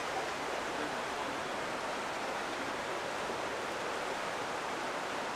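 Steady, even rushing noise with no breaks or distinct events.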